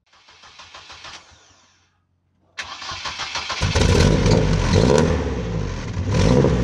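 A car engine starts suddenly about two and a half seconds in and is revved up and down several times. Before it, a brief noise fades out, followed by a moment of silence.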